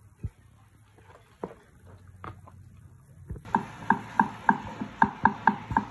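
Sparse faint clicks and taps, then from about three and a half seconds in a steady run of sharp knocks, about four a second: a knife chopping on a cutting board.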